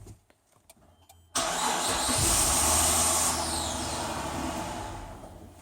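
Car engine starting from the push-button starter after about a second and a half, then running and fading away as it stalls: the engine fires but does not keep running.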